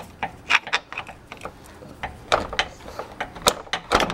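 A steel crowbar wedged between the transmission housing and a CV axle's inner joint, prying the axle out: irregular metallic clicks and knocks, a few louder strikes near the end.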